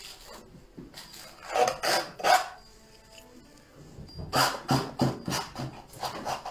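Painting knife scraping and spreading oil paint across the canvas in short strokes: about three strokes a second and a half in, then a quicker run of around six from about four seconds.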